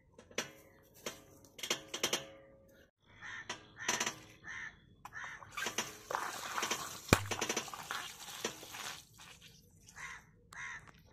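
Crows cawing repeatedly in short calls, with one sharp pop about seven seconds in as a water-filled balloon bursts under a tractor tyre.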